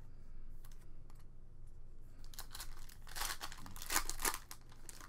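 Foil-wrapped trading card pack being torn open by hand, its wrapper crinkling and crackling loudly for about two seconds from roughly two seconds in, after a few faint clicks of cards being handled.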